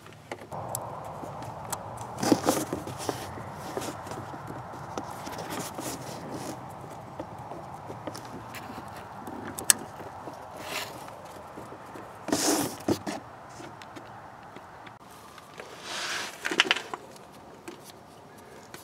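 Hands handling an oxygen sensor wiring harness and pushing it into its plastic retaining clips. Scattered small clicks and rustles, with three louder scraping rustles: about two seconds in, near the middle and about sixteen seconds in.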